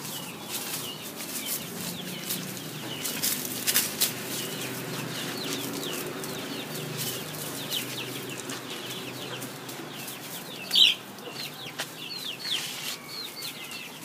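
Birds chirping in a steady string of short, falling notes, with one louder call about eleven seconds in. Scattered rustles and snaps of dogs moving through leaf litter and undergrowth.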